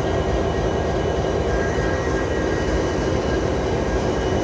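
Diesel freight locomotives running steadily at close range: a constant heavy rumble with a few thin, steady whining tones above it.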